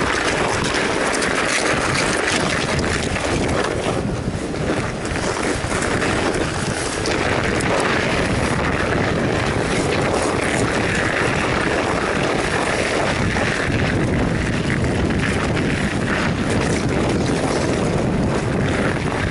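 Steady rushing wind noise on the microphone of a camera mounted on a moving fat bike, riding over packed snow.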